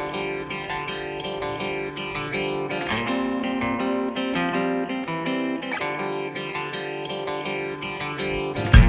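Background music: a plucked guitar playing a melody over sustained chords. Right at the end the music jumps abruptly to a much louder, fuller section.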